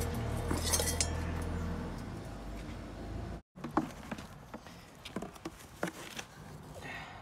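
A machine runs with a steady low hum, likely the plastering machine, until it cuts off abruptly about three and a half seconds in. Then come scattered sharp metallic clinks and scrapes of hand tools on a building site.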